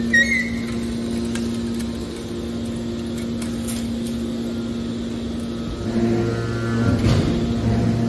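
Hydraulic scrap-metal baler running with a steady machine hum. About six seconds in, a deeper drone joins and the sound grows a little louder.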